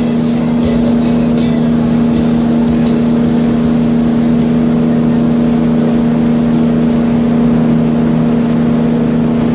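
Wake boat's inboard engine running steadily at surfing speed, a constant even drone, over the rush of the churning wake water.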